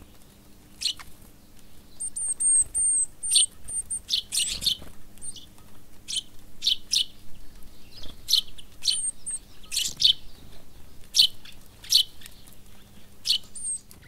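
Small songbirds chirping: repeated short, high chirps throughout, with a quick run of thin, high, falling notes about two seconds in.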